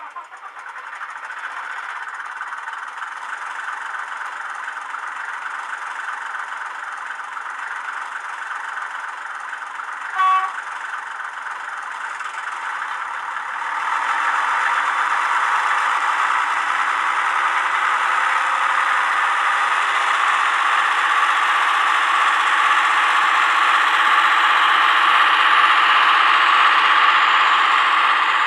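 Recorded Sentinel 0-6-0 diesel-hydraulic shunter engine sound from an ESU LokSound decoder, played through a small Sugarcube speaker in a Hornby OO model, so it has no deep bass. The engine idles, a short horn toot sounds about ten seconds in, and a few seconds later the engine opens up louder and stays under load as the loco moves off with its wagons.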